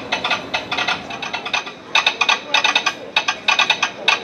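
Telegraph sounder clicking out Morse code: quick runs of clicks broken by short gaps, going on without a pause in the rhythm.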